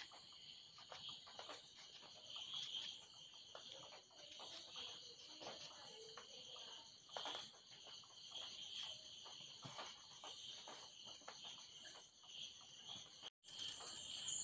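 Faint, steady chirping of insects, with soft intermittent scraping as a knife peels the skin off a yellow cucumber.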